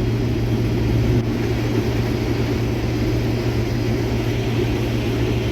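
Combine harvester running steadily while picking corn, a constant low engine hum under the noise of the machine's threshing and separating.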